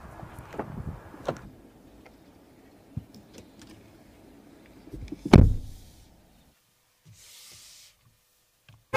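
Car door of a Mercedes-Benz GLC SUV shutting with one heavy thud about five seconds in, preceded by soft clicks and handling noise from inside the cabin.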